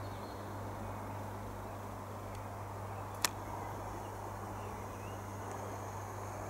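Steady low rumble of a Boeing 747 jet cruising high overhead, with a few faint bird chirps and one sharp click about three seconds in.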